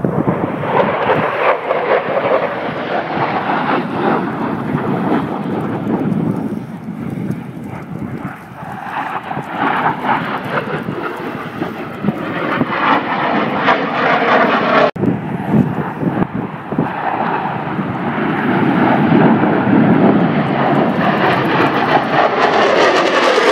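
Jet noise from F-16 Fighting Falcon fighters flying past overhead, a loud rushing engine sound that swells and fades as the jets pass, loudest near the end. It breaks off for an instant about fifteen seconds in.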